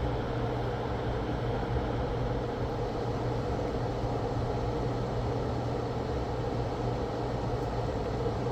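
Steady hum and hiss of a small electric fan or blower running on a soldering bench, even and unchanging throughout.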